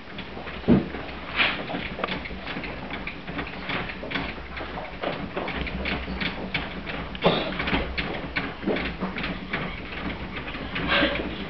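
Adjustable piano bench being raised by turning its side knob: irregular clicks and knocks from the mechanism, with a few louder thumps.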